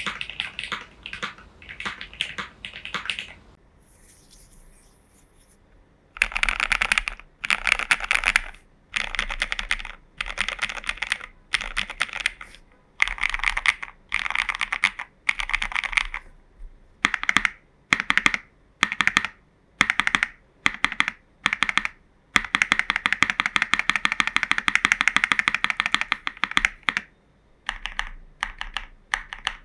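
Typing on a mechanical keyboard, a JerPlanet J1800 with lubed and filmed linear switches (Cherry housings with NK Cream stems), tape-modded and case-foamed, under CRP keycaps. Rapid bursts of keystrokes, broken by a pause of a couple of seconds a few seconds in, with a long fast run of typing in the second half and single keystrokes spaced apart near the end.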